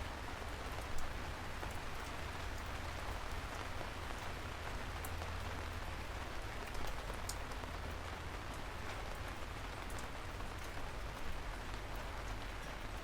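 Steady rain falling, with individual drops ticking sharply here and there over an even hiss and a low steady rumble underneath; a few slightly louder drops stand out, one about a second in.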